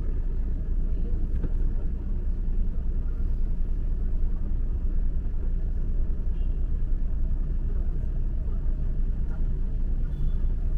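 Steady low rumble of a car driving on city streets: engine and tyre noise at an even level.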